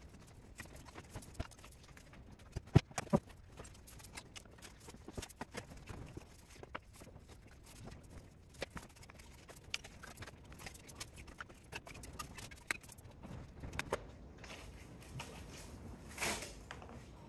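Scattered light clinks and knocks of burnt scrap metal being handled as melted aluminum is pulled out of the steel of burnt motor rotors, with a brief scrape about 16 seconds in.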